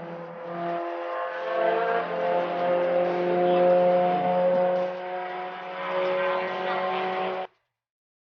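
Race car engine running at speed on the circuit, a steady engine note that grows louder toward the middle and then eases a little. It cuts off abruptly to silence near the end.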